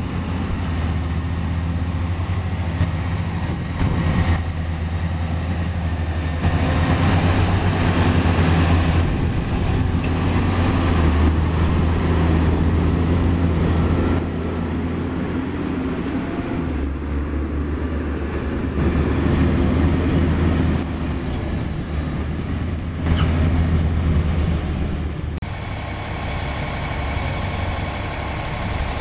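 Caterpillar 740 articulated dump truck's diesel engine running under load while the dump body is hoisted to tip its load, the engine swelling and easing several times. About 25 s in the sound changes to a steadier engine with a faint whine.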